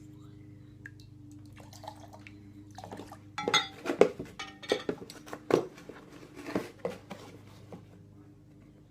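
A run of sharp knocks and clicks, about a dozen, from about three seconds in until near the end, over a steady low electrical hum.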